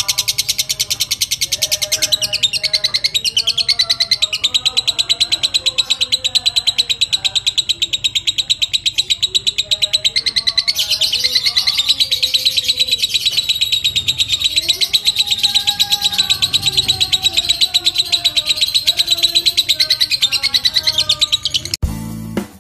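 Fighter lovebird's long 'ngekek' call: a loud, very rapid, high-pitched chattering trill running on with only brief breaks. Near the end it stops abruptly and music begins.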